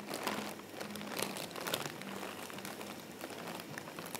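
Plastic spice packets crinkling and rustling as they are rummaged through in a wicker basket, an irregular run of small crackles.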